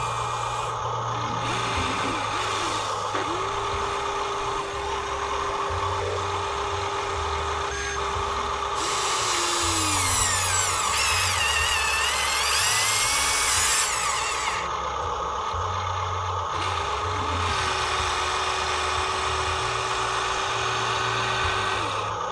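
Small electric motors of remote-control construction models whining: a steady whine that winds down about nine seconds in, a higher wavering whine for a few seconds after, then a steady whine again near the end.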